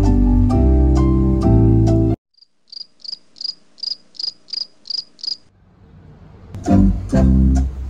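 Background music stops abruptly, then a cricket-chirp sound effect plays: about nine short, high chirps, about three a second, in otherwise dead silence. This is the stock 'awkward silence' gag. Music comes back near the end.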